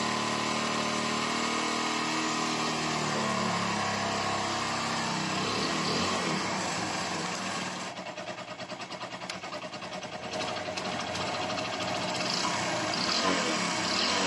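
Hero Passion Pro's single-cylinder four-stroke engine idling while its idle is being adjusted. About eight seconds in the idle drops lower and turns uneven and pulsing for a couple of seconds, then picks back up to a steady idle.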